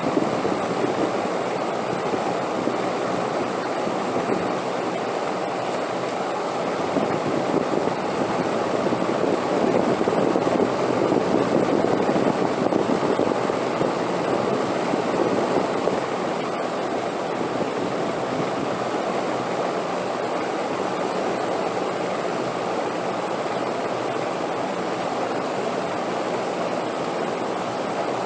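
Wind blowing in a steady rush that swells louder for a few seconds around the middle, then settles again.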